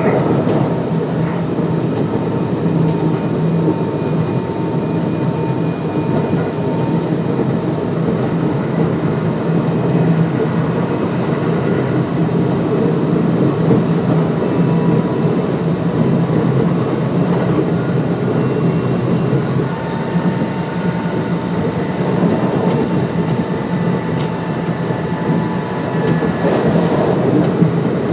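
Kintetsu 1259 series electric train running between stations: a steady rumble of wheels on rail with faint whining tones from its Hitachi GTO-VVVF drive.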